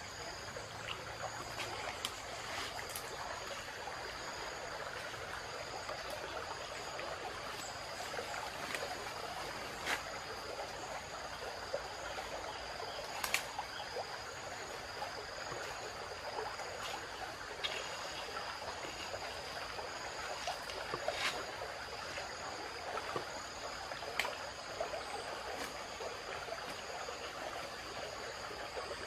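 Forest ambience: a small stream running steadily, insects calling in two steady high pulsing tones, and occasional sharp snaps of dry bamboo and leaves as a man moves through a bamboo thicket.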